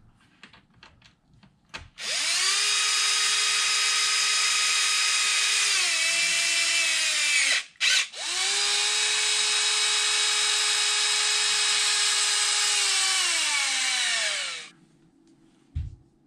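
Cordless drill-driver running in two long steady runs with a short break between, driving the bolts back into an RC truck's front chassis. Its whine drops in pitch partway through the first run and winds down at the end of the second.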